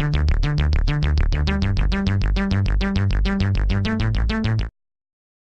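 Electronic background music: a fast, even pulse of short synthesizer notes, about eight a second, over a stepping bass line. It cuts off abruptly near the end.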